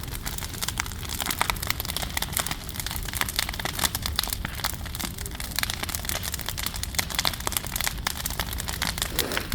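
Large bonfire crackling, with many sharp pops and snaps at irregular intervals over a steady low rumble.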